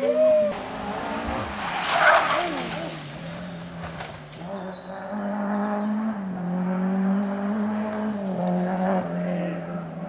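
Ford Escort rally car leaving the road in a slide: its engine note drops away, a loud noisy crash into the undergrowth comes about two seconds in, and then the engine keeps running off the road, its pitch stepping up and down.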